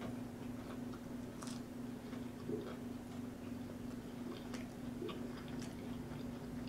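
A person chewing a bite of breaded chicken fry with her mouth closed: scattered small crunches and wet mouth clicks at irregular intervals.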